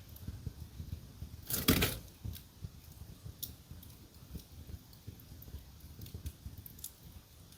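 Fire in a fireplace crackling, with scattered sharp pops and one loud crackling burst about one and a half seconds in.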